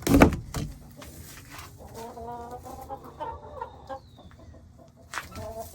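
A loud thump just after the start, then domestic chickens clucking in a series of short calls.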